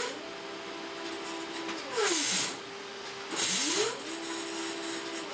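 Stepper motor driving the carriage of a converted Epson LQ2070 dot matrix printer, jogged back and forth twice. Each move is a whine that rises in pitch as the carriage speeds up, holds a steady tone, then falls as it slows. A harsh hissing rasp, louder than the whine, comes around each stop and start.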